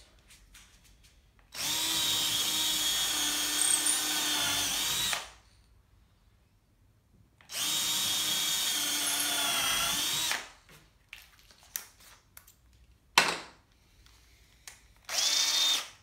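Cordless drill boring 3.5 mm pilot holes into a timber frame: two steady runs of about three and a half and three seconds, then two short bursts near the end, with light handling clicks between.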